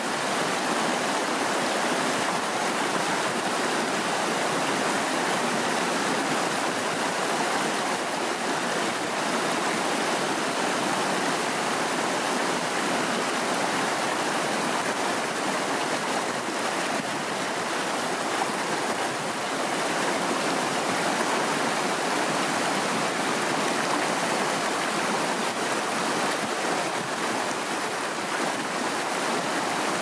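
Mountain river rushing over rocky cascades and a small waterfall: a steady, even rush of water.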